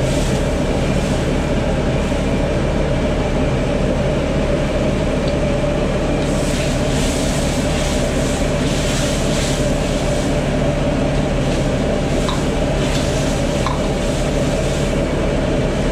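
Steady, loud roar of a commercial wok stove under a wok of simmering sauce. A sizzling hiss rises for a few seconds midway, and a ladle clicks against the wok a few times near the end.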